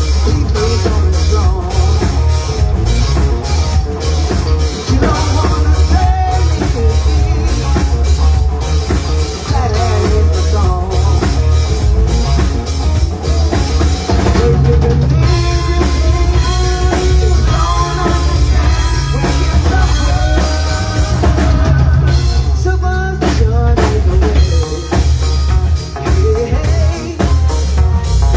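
A band playing rock music, with a drum kit keeping a steady beat under pitched instruments and a heavy low end.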